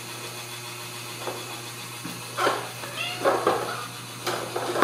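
Ragdoll kittens mewing: several short, high mews from about halfway on.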